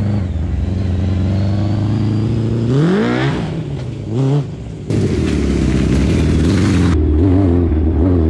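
Honda CBR600 inline-four motorcycle engine driving a reverse trike. It runs steadily and is revved up and back down twice a few seconds in. After a short dip, about two seconds of rushing noise sit over it before the engine settles back to a steady run.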